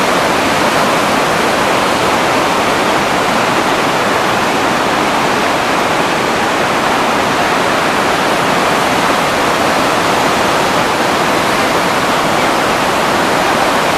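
Spokane Falls in heavy flow, masses of whitewater pouring over the falls and churning below, making a loud, steady rush of water.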